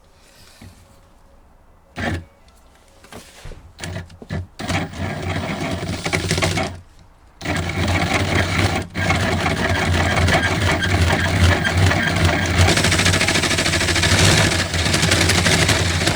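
Electric hand drill with a hole-cutting bit boring into a piece of laminate flooring to cut a round plug. After a few knocks, it runs briefly, stops for a moment about seven seconds in, then drills on steadily.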